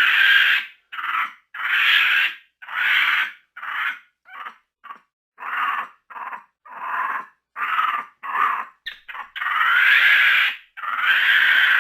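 Capuchin monkey growling: a run of short, scratchy, rasping growls, roughly one or two a second, with a longer drawn-out growl near the end.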